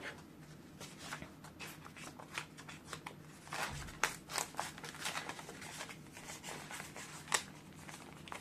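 Soft, irregular rustling and crinkling of polymer banknotes, a paper challenge card and a clear plastic envelope being handled, with many small ticks and crackles.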